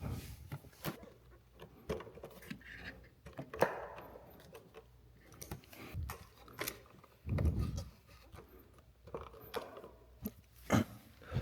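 Small metal hand tools clinking and clattering as they are handled, with scattered sharp clicks, the sharpest about three and a half seconds in and again near the end, and a dull low thump about seven seconds in.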